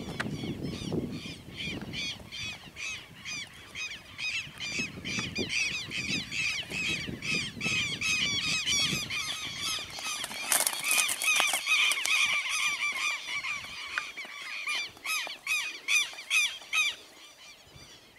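Birds calling in harsh, rapidly repeated notes, several a second, growing louder and denser after the middle. There is a brief rush of noise about ten seconds in.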